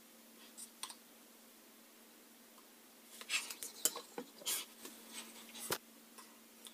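Scissors snipping through hair with a couple of small clicks just under a second in, then a flurry of sharp clicks and rustles as the hair and scissors are handled, over a faint steady hum.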